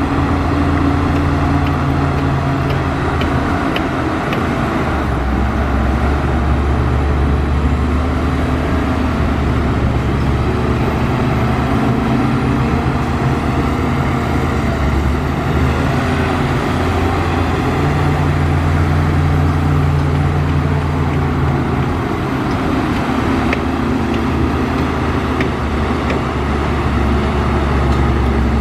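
Heavy diesel earthmoving machinery running under load, its low engine note shifting up and down every few seconds.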